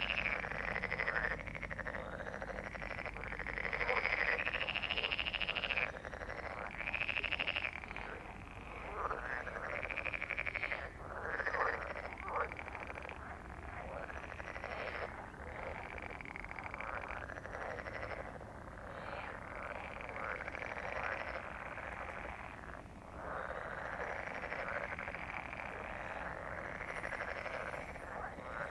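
A breeding chorus of many frogs croaking over one another in a dense, continuous mass of calls.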